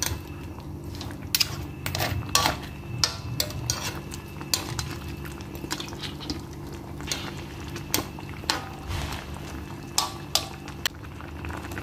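A metal spatula clinking and scraping against a wok as a thick seafood curry is stirred, irregular clinks about once or twice a second. Under it the curry sauce simmers, being cooked down to thicken.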